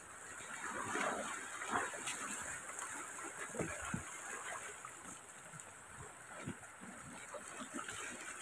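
Faint outdoor ambience: a low wash of surf with scattered small knocks and rustles of camping gear being handled.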